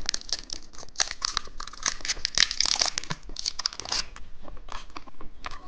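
Candy wrapper crinkling and tearing as a packet of foot-shaped gummy candy is opened, a dense run of crackles that thins out in the last second or two.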